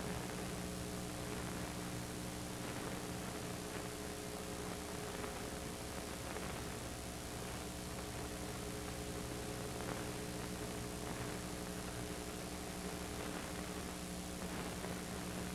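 Steady electrical mains hum over a constant hiss and nothing else: the noise floor of a film transfer whose soundtrack is missing here.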